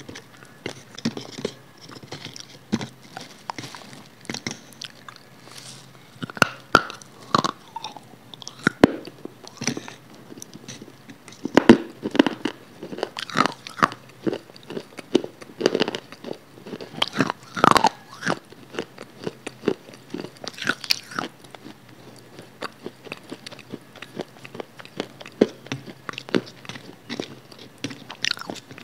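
Close-miked eating: irregular crunching bites and chewing with wet mouth noises, right at a foam-covered microphone, loudest in a few crunchy bites about halfway through.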